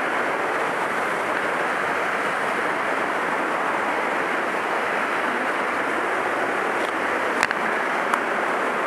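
Steady rushing of a rocky mountain stream cascading down a series of small waterfalls. Two short knocks near the end.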